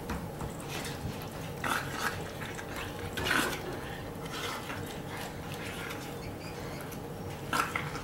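Belgian Malinois puppy being handled on a hardwood floor: faint scuffling and a few brief soft noises, about two and three seconds in and again near the end.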